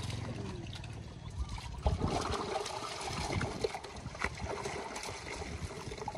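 Water trickling and splashing, with scattered light knocks and clicks.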